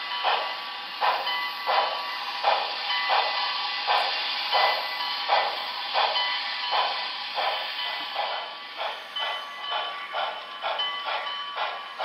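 Model steam locomotive's onboard sound system playing exhaust chuffs through its small speaker, a regular chuff-chuff that quickens over the last few seconds as the train picks up speed.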